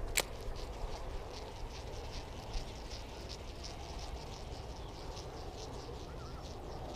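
Insects chirping in a steady rapid pulse, about four chirps a second, with one sharp click just after the start.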